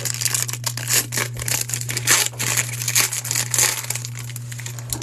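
Foil wrapper of a trading-card pack crinkling as it is torn open and handled, an irregular crackle that dies down about four seconds in.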